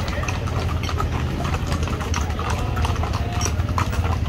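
Horses' hooves clip-clopping in irregular clicks from several horses, over the steady low running of a motorcycle engine.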